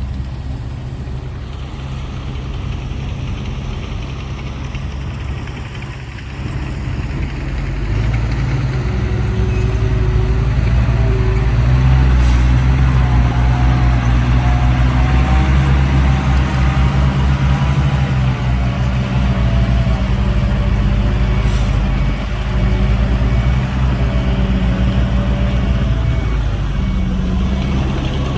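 Heavy diesel engine of a dump truck or bulldozer running with a deep, steady drone that gets louder about eight seconds in, with a couple of short clicks.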